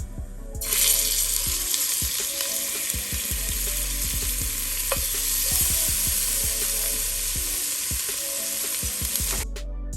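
Oxtail pieces sizzling in hot oil in a stovetop pot; the loud hiss starts suddenly about half a second in and stops abruptly near the end. Background music with a steady beat plays underneath.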